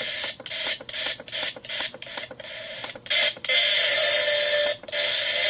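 Lalaloopsy toy alarm clock radio's small speaker hissing with FM static and brief scraps of stations while the tuning is skipped through, broken by a click or dropout about three times a second. It settles on a steadier stretch with a held tone about halfway through.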